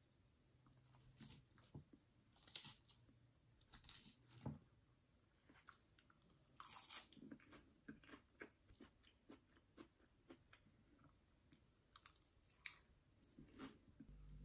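Faint close-up eating of a salad: irregular crunching and chewing, heard as scattered short crackles.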